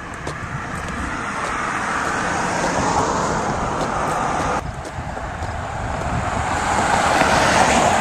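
Road traffic: a steady noise of passing cars that swells over the first few seconds, cuts off sharply about halfway through, then builds again to its loudest near the end.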